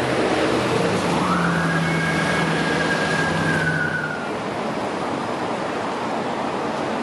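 Light rail vehicle's traction motor whine: a high whine that rises in pitch about a second in, holds steady and fades out around four seconds, with a low hum under it. Over it and afterwards is a steady rushing noise.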